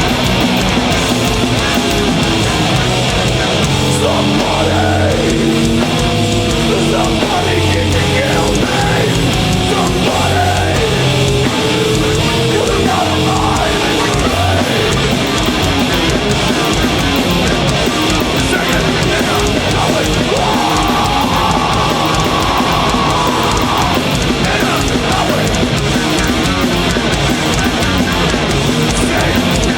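A heavy metal band playing live and loud, with distorted guitar riffing that steps between notes; about twenty seconds in, a high guitar note is held for a few seconds.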